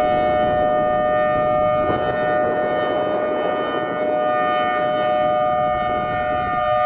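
Emergency warning siren of Killeen's outdoor warning system holding a steady alert tone of two notes sounded together, with no rise or fall in pitch.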